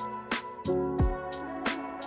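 Background music: held instrumental chords over a regular drum beat.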